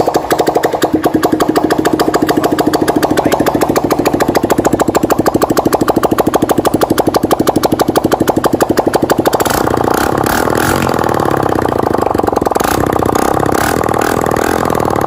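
160 cc single-cylinder four-stroke motorcycle engine running with its exhaust pipe removed: loud, rapid popping straight from the open exhaust port on its first start after a top-end rebuild. Its sound changes about nine and a half seconds in.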